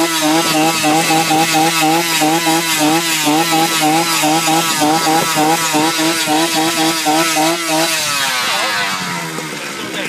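An engine running steadily, its pitch gliding down and its level falling about eight seconds in.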